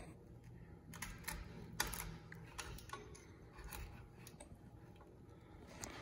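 Faint, scattered clicks and light knocks of parts being handled as a garage door opener's gear assembly, metal shaft and broken plastic gear, is rocked and pulled up out of the motor housing.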